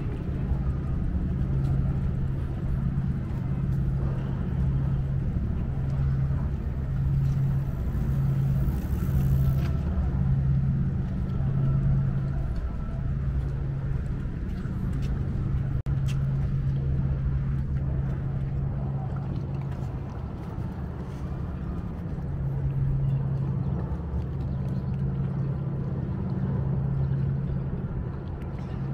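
A steady low engine hum with a rumble beneath it.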